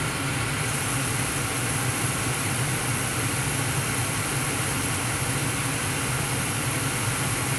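Gas furnace running with its row of in-shot burners lit: a steady rush of burning gas over a low, even hum.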